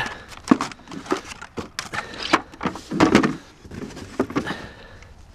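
Trash being handled: styrofoam sheets and cardboard shifted, and a wooden drawer organizer picked up. The handling makes a series of short knocks and rustles, with a louder bump about three seconds in.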